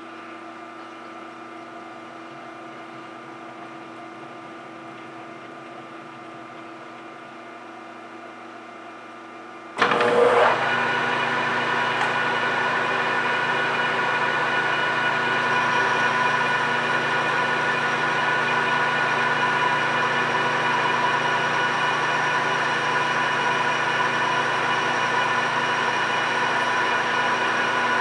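A PM1660 manual engine lathe switched on about ten seconds in: a sudden burst as the spindle starts, then the lathe running steadily with several steady whining tones as its chuck spins an aluminium bar. Before it starts there is only a faint steady hum.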